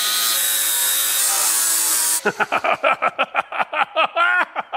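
Angle grinder cutting a clearance notch into a steel exhaust header flange, running steadily for about two seconds and then stopping. After it stops comes a quick series of short pitched sounds, about four a second.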